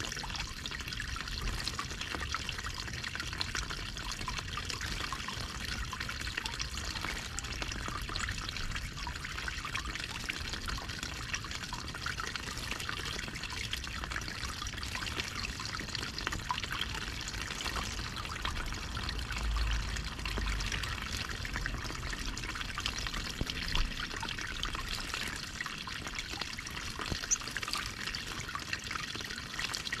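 Water running and trickling in a small garden stream, a steady splashing with a couple of brief sharper sounds in the last few seconds.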